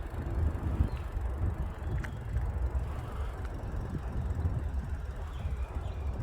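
Low, uneven outdoor rumble with a few faint ticks.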